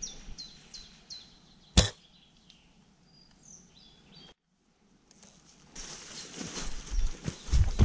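A bird calling with short falling chirps, about three a second. About two seconds in comes a single sharp shot from the CYMA CM702 spring-powered airsoft sniper rifle. After a brief dead gap, rustling and heavy thumps of movement start near the end.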